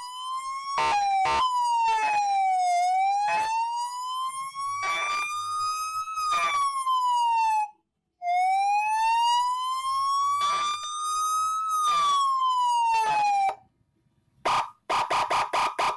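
Electronic police siren module sounding through a 20-watt horn speaker: a wailing tone that climbs slowly and drops back more quickly, twice, with short breaks between. Near the end it switches to a fast pulsing tone, another of the module's sounds.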